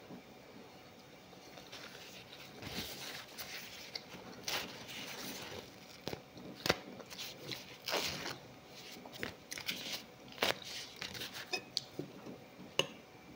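Eating sounds: khubz flatbread being torn and chewed, with a metal spoon scraping and clicking against a ceramic bowl, giving an irregular run of soft rustles and several sharp clicks.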